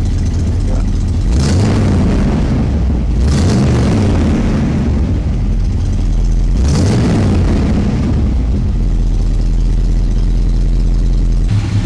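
1983 Chevrolet El Camino's engine running after an oil change, revved up and back down three times, about a second and a half, three and a half and seven seconds in.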